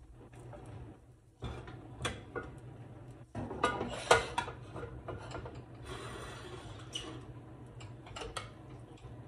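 A frying pan shifted and set down on a gas stove's metal grates, with a wooden spoon knocking against a ceramic bowl of shrimp: irregular clatters and knocks, the loudest about four seconds in. A soft hiss runs under the second half.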